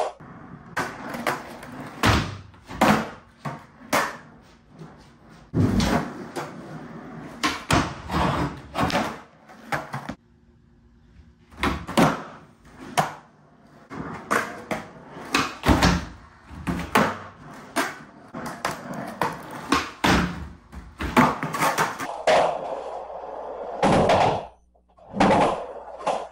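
Skateboard tricks on a concrete garage floor and wooden pallet ledge: a run of sharp clacks and slaps from the board popping, hitting the ledge and landing, with urethane wheels rolling on concrete between them.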